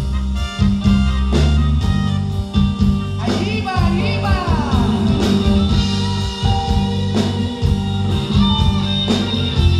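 Live band playing a song: drums keeping a steady beat under bass, keyboard and electric guitar, with a woman singing.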